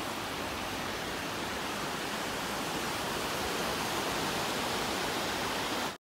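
Small waves washing onto a sandy beach: a steady, even rush of surf.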